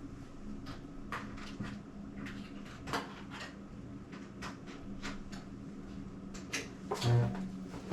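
Scattered clicks and knocks of hands handling and plugging in camcorder AV cables and gear, with a louder knock about seven seconds in, over a steady low hum.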